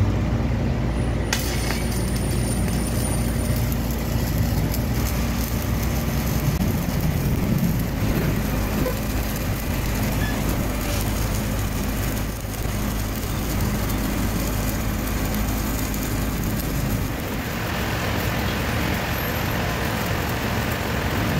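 Stick (SMAW) welding arc crackling and hissing steadily as a 3.2 mm E7018 electrode burns in an overhead weld at about 110 amps, striking about a second in. A low steady rumble of street traffic runs underneath.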